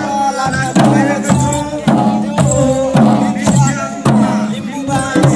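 Limbu chyabrung barrel drums beaten in a steady dance rhythm of about two strokes a second, with a pitched melody running over the beat.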